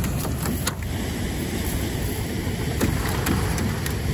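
A cast net splashing down onto the river's surface, over a steady low rumble.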